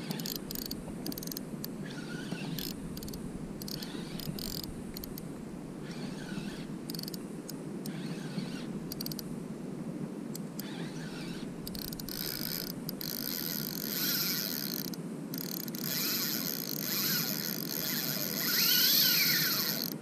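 Spinning reel's drag buzzing and clicking as line is pulled off the spool, in short spurts at first and then in longer, louder runs through the second half, over a steady low rush.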